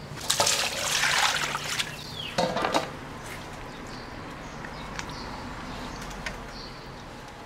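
Water poured into a stainless steel bowl of raw goose meat for about the first two seconds, then hands rinsing and turning the goose pieces in the water, with small splashes and sloshing.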